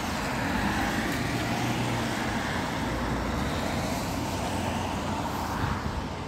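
Road traffic on a wet street: a motor vehicle going by with a steady engine rumble and tyre hiss.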